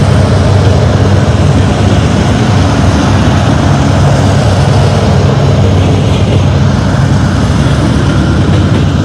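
Several BNSF diesel-electric locomotives passing close by under power: a loud, steady low diesel drone with the noise of the passing train over it.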